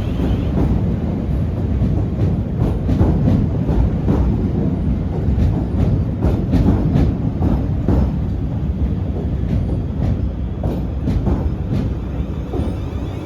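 Two coupled Class 444 electric multiple units rolling in alongside the platform, a steady rumble with repeated wheel clicks over the rail joints, easing off slightly toward the end as the train slows.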